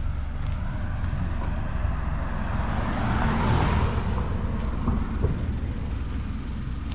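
Hyundai Elantra GT N Line's turbocharged 1.6-litre four-cylinder with an aftermarket cold air intake, heard on a test drive: steady engine and road rumble, with a rushing swell about three to four seconds in.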